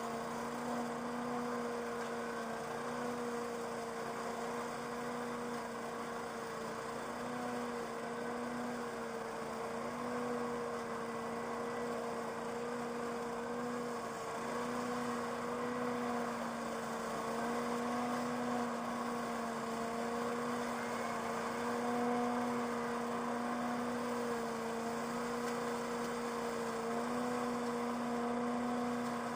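Leaf vacuum motor running steadily, a constant droning hum with a faint whoosh of air, its pitch wavering slightly now and then.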